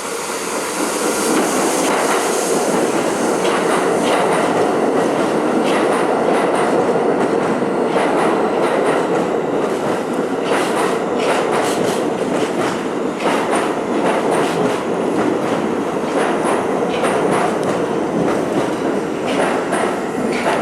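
New York City subway train running through the station: a loud, steady rumble of steel wheels on rail that builds over the first couple of seconds, with repeated clicks as the wheels cross rail joints.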